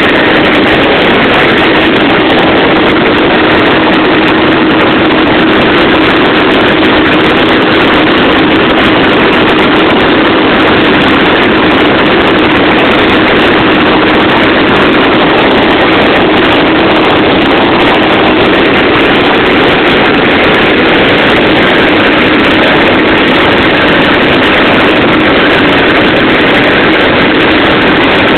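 Helicopter in flight: a loud, steady drone of engine and rotor with a constant hum running through it.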